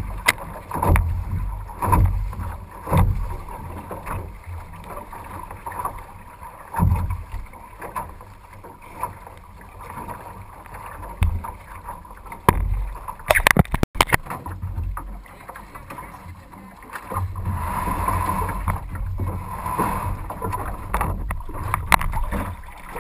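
Wind gusts buffeting the microphone of a camera mounted on a paddled racing canoe, with water noise off the choppy lake, in uneven low rumbles. A quick cluster of sharp clicks and knocks comes about two-thirds of the way through.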